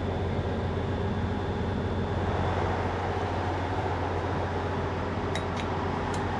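Steady low cabin hum of a stationary Transwa WDA-class diesel railcar, with three short sharp clicks about five to six seconds in as the toilet door's push button is pressed.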